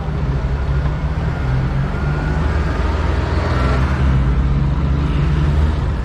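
A motor vehicle engine running steadily close by, a deep rumble over street traffic noise.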